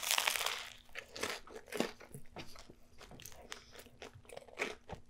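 A person biting into a large sandwich of crusty toasted bread filled with crispy chicken and onion rings. A dense crackling crunch in the first second, then chewing with scattered smaller crunches.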